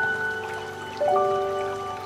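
Gentle instrumental background music with held notes, a new note coming in about a second in, over the steady rush of a shallow stream flowing between rocks.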